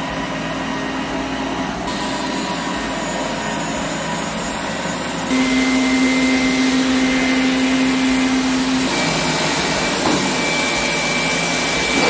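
Xiaomi Mijia 1C robot vacuum's brushless suction fan running steadily as it is switched up through its suction modes from Silent towards Turbo. The hum steps up three times, about two, five and nine seconds in, with the biggest jump in loudness near five seconds.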